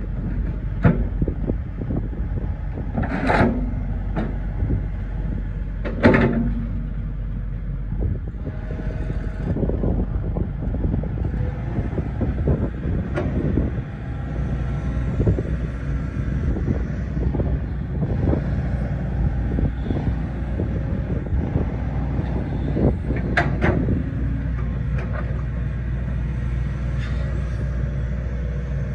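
Hitachi ZX130LCN-6 14-tonne excavator's diesel engine running under load while the boom and bucket are worked hydraulically, with several sharp knocks, the loudest a few seconds in and again past the middle.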